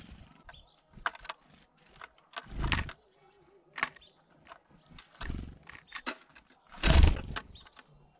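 Great tits and a sparrow landing on and flying off a wooden seed feeder right by the microphone: irregular wing flutters and thumps, the loudest about seven seconds in, with sharp clicks between them.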